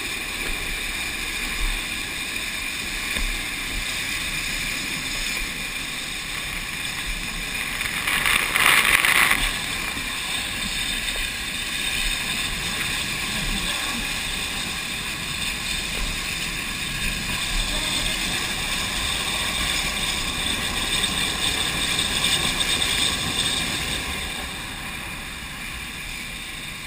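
Fire hose fog nozzle spraying a wide water pattern onto a burning propane fire: a steady, loud rushing hiss of water and flame, swelling for a second or so about eight seconds in and easing slightly near the end.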